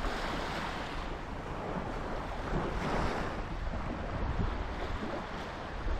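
Small Gulf of Mexico waves washing onto the beach in a steady wash that swells a little about a second in and again about three seconds in, with wind rumbling on the microphone.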